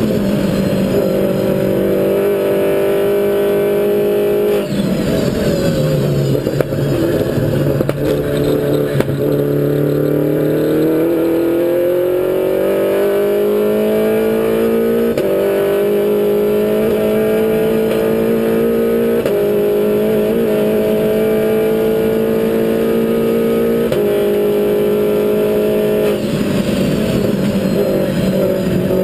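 Mini Cooper race car engine heard from inside the stripped-out cabin at racing speed. The engine note drops about five seconds in, then climbs steadily for several seconds under acceleration, with a few abrupt steps in pitch later on.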